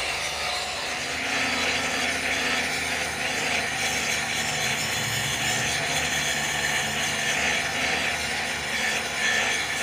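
Angle grinder held against built-up weld on the steel teeth of a helical gear pinion shaft, a steady continuous grinding that shapes the weld-repaired broken teeth back to form.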